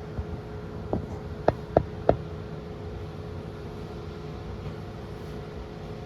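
Steady droning hum with a few steady tones, like a fan or motor, and four sharp knocks in quick succession about a second to two seconds in.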